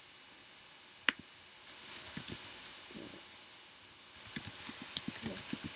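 Typing on a computer keyboard: a few scattered key clicks over the first three seconds, then quick, continuous typing from about four seconds in.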